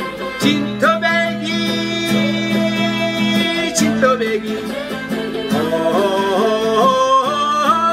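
A man singing a Korean trot song while strumming chords on a Crafter acoustic guitar, holding wavering notes with vibrato near the end.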